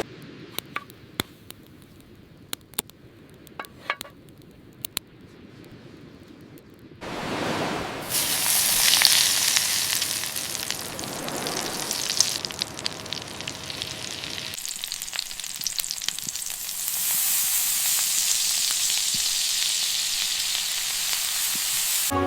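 Lobster tail and butter sizzling loudly on a hot stone slab, starting about seven seconds in. Before that it is quieter, with a few sharp clicks and knocks.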